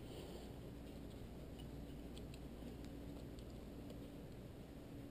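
Faint small ticks and scratches of a razor blade cutting into the edge of a shrink-film lure skin on a popper, over a low steady hum.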